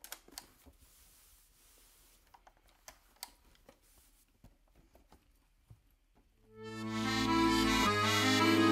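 Faint scattered clicks and knocks as a button accordion is handled. About six and a half seconds in, the blue Ottavianelli button accordion swells in on a held chord and moves into a melody over sustained bass notes.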